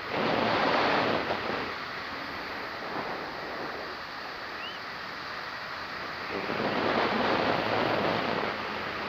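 Wind rushing over the microphone of a flying paramotor, swelling louder twice: for the first second and a half, and again for about two seconds near the end.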